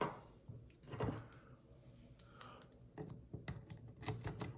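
Light clicks and taps of small parts being handled on an AK pistol's quad-rail handguard: rail covers and the red dot mount being worked on and off the rail. The clicks are sparse at first and come thicker from about three seconds in.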